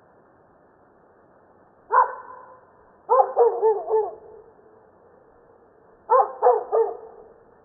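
A dog barking over a faint steady street background: one bark about two seconds in, a quick run of about four barks a second later, and three more near the end.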